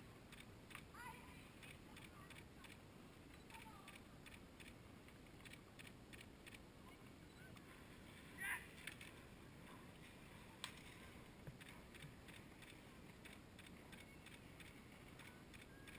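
Near silence: faint outdoor background hiss with a few short, distant calls scattered through, the loudest about halfway through, and a single sharp click a little later.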